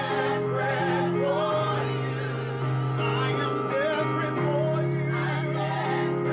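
Gospel vocal group singing in harmony over held keyboard chords.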